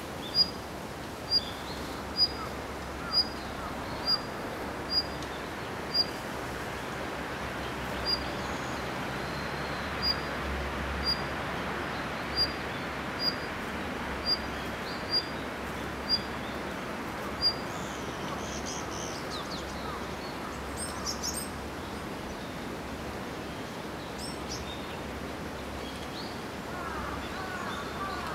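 A bird repeating a single short, high-pitched note about once a second, with slightly uneven gaps, stopping about seventeen seconds in. Fainter chirps follow later, over a steady background noise haze.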